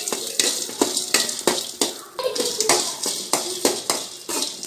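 Spatula stirring whole spices and shallots as they roast in a little oil in a kadai: repeated clinks and scrapes against the pan, several a second.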